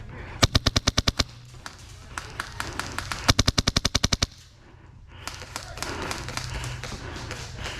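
Airsoft gun firing two rapid full-auto bursts of about a dozen shots each, a couple of seconds apart, with a few single clicks between them. Rustling handling or movement noise follows.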